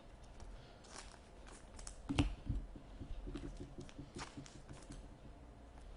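Hockey trading cards being handled and flipped through by hand: soft rustles and light clicks, with a sharper click about two seconds in.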